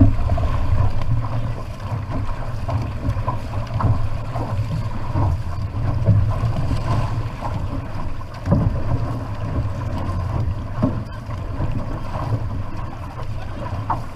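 Wind buffeting the microphone over water rushing and splashing along the float and hull of an outrigger canoe being paddled at race pace, with uneven splashes from the strokes.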